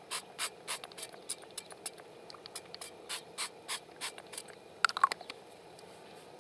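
Butter and olive oil crackling as they heat in a pan on a low gas flame, with small sharp pops about three a second over a faint hiss. The pops die away after about five seconds, just after a couple of louder clicks.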